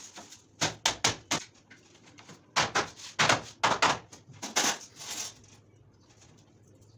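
Hammer knocking on a wooden batten held against a PVC wall panel, tapping the panel into place: a quick run of about four knocks, then a second run of heavier knocks a second or so later.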